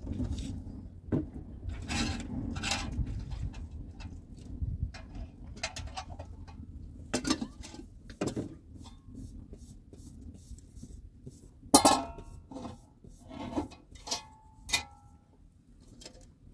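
Metal kettle and cooking pots being handled, with scattered clinks and knocks; the loudest comes about twelve seconds in, and a few ring briefly.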